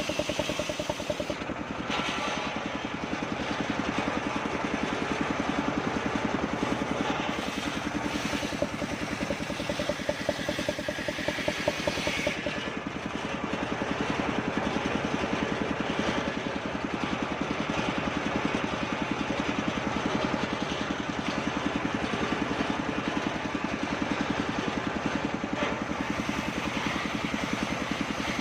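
Engine driving a homemade circular sawmill, running steadily with a rapid, even pulse.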